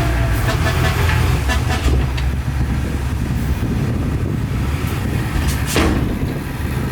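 Heavy diesel engine running steadily with a deep rumble and light rattling, with one short sharp noise near the end.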